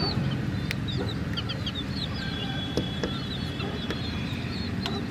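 Young chicks peeping: many short, high chirps in quick succession, with one longer, steady peep near the middle. A few sharp taps come through, and a steady low rumble runs underneath.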